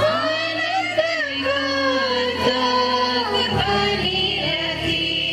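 Church singing with instrumental accompaniment: voices holding sustained sung lines over steady low chords that change about a second in and again midway.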